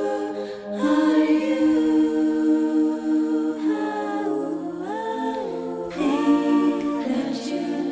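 Wordless a cappella singing: several voices hold long sustained notes in harmony, the chord shifting a few times.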